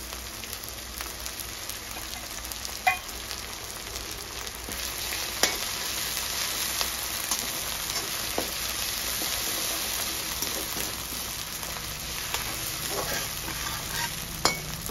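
Grated ginger, green chillies and cumin sizzling in hot oil in a metal kadhai, the sizzle growing a little louder after the first few seconds. A slotted steel spoon stirs the mixture and knocks sharply against the pan three times.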